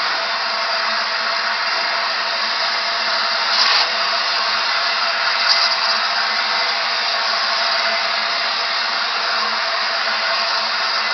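Steam hissing steadily from the LNER Peppercorn A1 steam locomotive 60163 'Tornado' as it stands, with no exhaust beats. It briefly gets louder twice, about four and five and a half seconds in.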